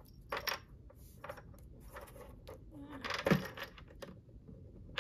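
Light clicks and clatter of a paper trimmer and a sheet of paper being handled and lined up, with one louder knock about three seconds in.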